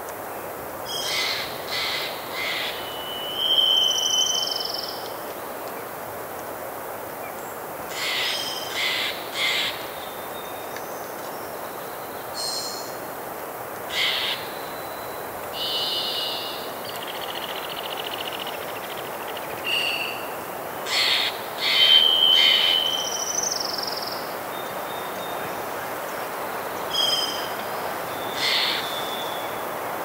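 Spring woodland ambience: a hermit thrush singing clear, flute-like phrases in the background, and harsh corvid calls in short runs of two or three every several seconds, over a steady rush of wind and a distant river.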